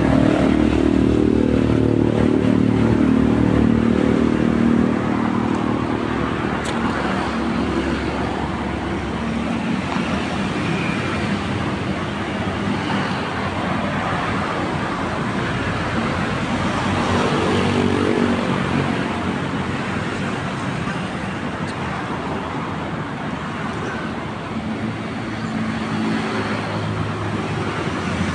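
Road traffic: motor vehicle engines running, loudest in the first five seconds, with more engine noise swelling around the middle and again near the end over a steady traffic hum.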